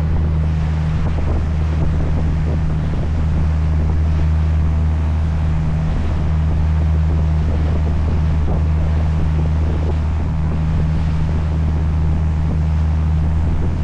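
Sightseeing boat's engine running with a steady, low drone, with wind rushing over the microphone and water washing against the hull.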